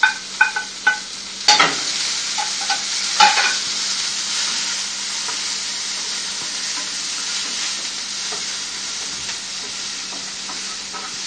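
Chopped onion, tomato and coconut frying in a little oil in a non-stick pan, stirred with a wooden spatula. Sharp taps and knocks of the utensils on the pan in the first few seconds, two of them louder, about 1.5 and 3 seconds in, then a steady sizzle.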